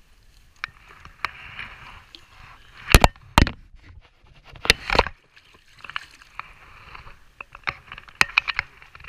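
Shallow river water sloshing around wading legs, with handling noise: two pairs of loud knocks and rubbing against the body-worn camera about three and five seconds in, then a quick run of small metal clicks near the end as forceps are worked over a steelhead in a landing net.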